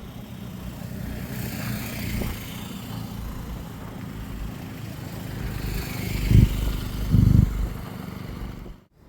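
Road traffic passing close by: two vehicles sweep past one after the other, then two heavy, deep thumps come about a second apart, near the end.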